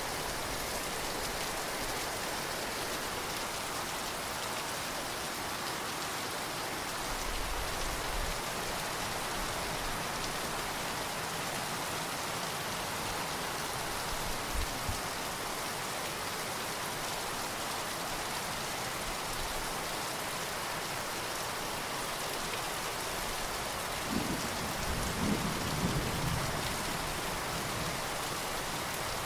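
Steady heavy rain falling, with distant thunder rumbling low a few times. The longest and loudest roll comes near the end.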